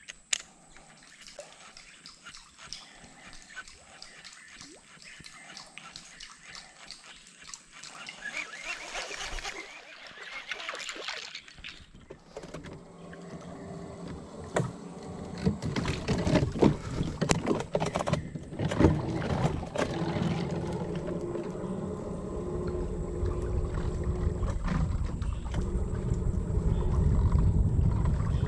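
Small plastic boat moving along a creek: water splashing and knocking against the hull, quiet at first, then growing louder about halfway through with a run of sharp knocks and a low rumble building toward the end.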